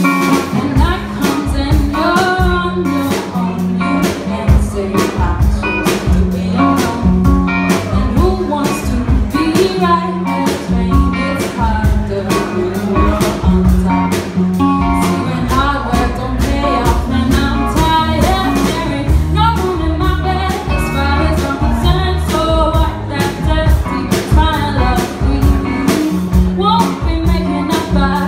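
A live band playing a song: a female singer with drum kit, guitar and keyboard, a steady drum beat and bass line under the vocal.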